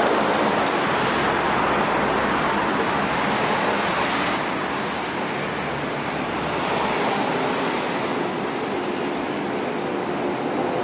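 Hong Kong Light Rail tram rolling along the track, heard as a steady rushing noise with a few faint clicks at the start. A faint steady hum comes in near the end.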